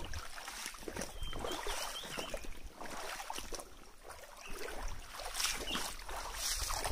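Irregular splashing and sloshing of someone wading through a shallow rocky stream.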